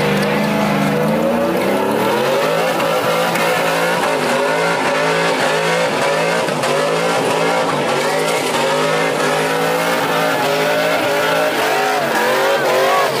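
An SUV doing a burnout: its engine held at high revs, the pitch wavering up and down continuously, over the hiss and squeal of the rear tyres spinning on the pavement.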